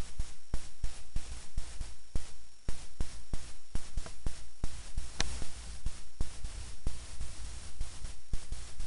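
Irregular sharp clicks, roughly two to four a second, over a low steady hum.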